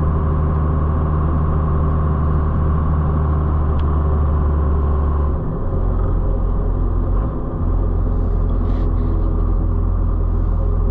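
1994 Dodge Ram 2500's 5.9 Cummins inline-six turbo diesel pulling the truck along with a steady low drone. The engine note drops and changes about halfway through, then settles. The engine is still warming up on a test drive after a thermostat replacement.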